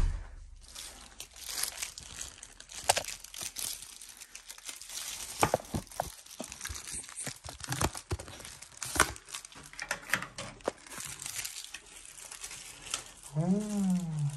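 Crinkling and rustling of something being handled, with scattered clicks and crackles. Near the end comes a short voiced sound that rises and then falls in pitch.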